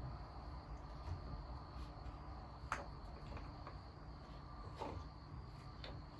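A few faint clicks and taps as the front wheel and axle are fitted into the dirt bike's forks by hand, over a faint steady high-pitched tone.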